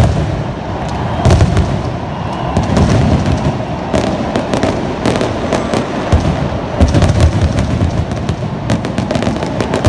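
Fireworks going off inside a roofed stadium: a dense run of sharp cracks and pops from many small bursts, with deep booms that come in waves several times.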